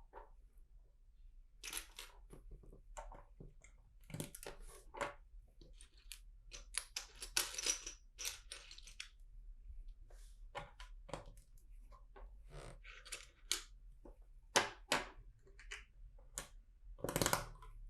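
Plastic LEGO bricks being handled and pressed together: irregular small clicks and brief rustles of pieces, with a few louder snaps about 15 and 17 seconds in.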